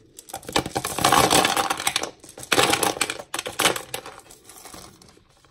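Small stones poured into a clear plastic flowerpot, rattling and clattering against the plastic and each other. A long pour comes first, then two shorter ones, and the clatter thins out toward the end.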